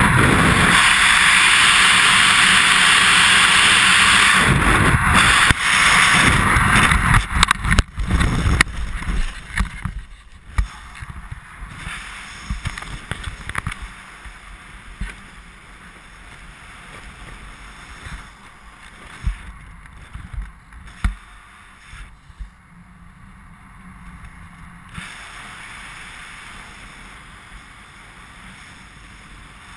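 Wind rushing loudly over the helmet camera's microphone in skydiving freefall, broken by a few seconds of sharp flapping as the parachute opens. After that the noise falls to a much quieter rustle of air and canopy fabric under the open parachute, with the odd soft bump.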